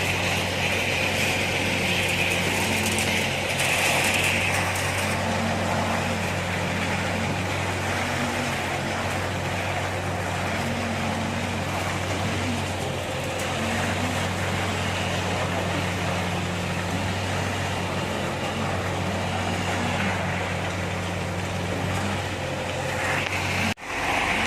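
Concrete pump truck's engine running steadily, with a short rising hum about every one and a half to two seconds. The sound drops out briefly near the end.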